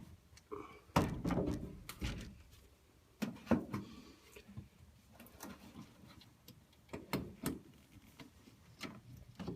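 A string of separate knocks and thunks, like a car door and parts being handled, the loudest about a second in; no engine is running.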